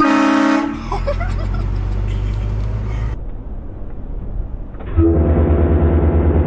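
Vehicle-mounted air-powered train horns blasting: a short blast right at the start, a low engine rumble after it, then a second, longer blast of the steady horn chord from about five seconds in.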